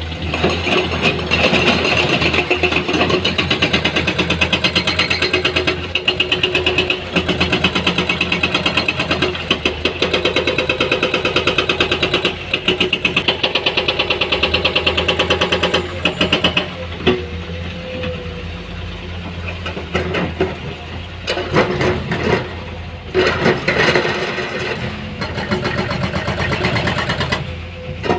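Heavy diesel machinery engine running hard and steady for about the first fifteen seconds, then easing off, with uneven surges and drops in the last several seconds.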